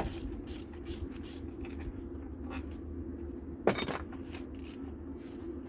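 Hand work on a car with metal tools: a run of short scraping strokes, two to three a second, over a steady low hum. About two-thirds of the way through comes one sharp metallic clank that rings briefly.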